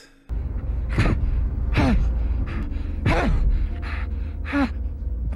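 A man gasping and grunting in four short, strained breaths over a deep, steady low rumble from a film soundtrack.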